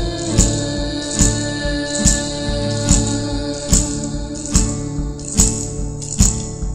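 Music with a slow, steady beat, a little faster than one beat a second, each beat carrying a bright, high percussive strike over sustained held chords.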